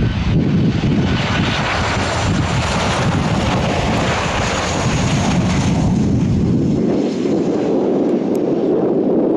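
Boeing 737 airliner's jet engines passing low and close on landing approach: a loud, steady rumble and rush of air. The deep rumble drops away about seven seconds in.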